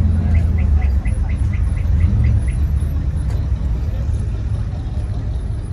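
A vehicle engine running, a steady low rumble throughout. In the first two and a half seconds a quick run of about ten short high chirps comes about four a second.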